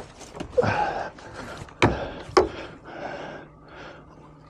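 Landing net being grabbed and handled on a small fibreglass boat, knocking against the hull: two sharp knocks about two seconds in, with lighter clatter around them.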